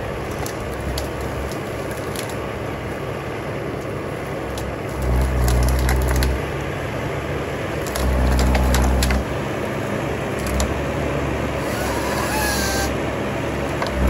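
Wheeled forest harvester working: its engine and hydraulics run steadily and rise in two heavy, deeper surges about five and eight seconds in as the harvester head grips and processes a pine stem. Branches and wood crack and snap repeatedly over the machine noise.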